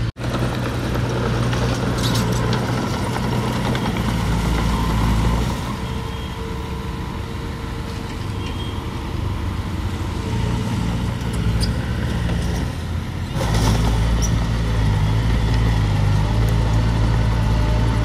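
Diesel engines of earthmoving machinery running low and steady, with a few sharp metallic clicks. The sound gets quieter about five seconds in and jumps louder again about thirteen seconds in.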